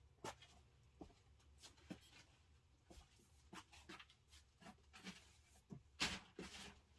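Near silence: room tone with faint scattered clicks and knocks, and two soft swishes about six seconds in.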